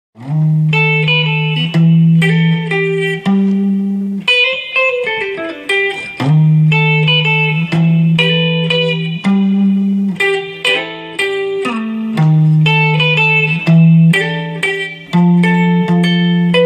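Electric guitar playing a rock riff of held low notes broken up by quick higher licks, the phrase coming round again about every six seconds.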